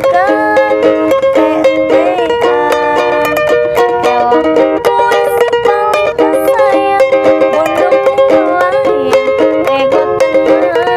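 A woman singing a Javanese pop song in a clear voice, accompanied by a strummed ukulele.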